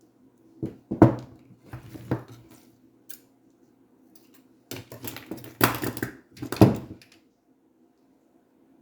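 Knocks and clatter of materials and tools being handled on a work surface, with rustling. A few separate knocks come in the first three seconds, then a denser run of scraping and knocks from about five to seven seconds in.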